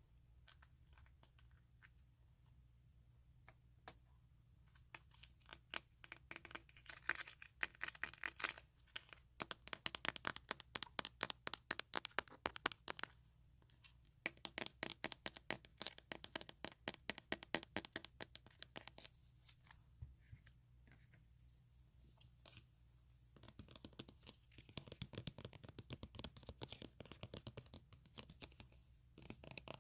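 Close-miked scratching and crackling on the microphone, coming in dense runs of rapid sharp clicks, then turning to a lower, rougher rubbing near the end.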